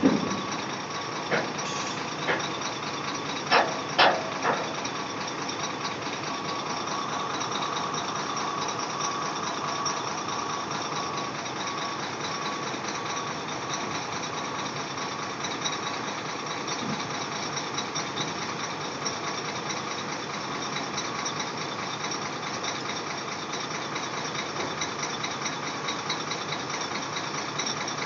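Heavy vehicle's engine running steadily, with a warning alarm beeping over and over at one steady pitch that stops about 22 seconds in. A few sharp knocks in the first few seconds.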